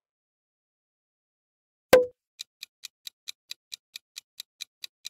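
Quiet for about two seconds, then a single sharp hit with a short ring as the next question appears, followed by a countdown timer's clock-ticking sound effect, about four to five even ticks a second.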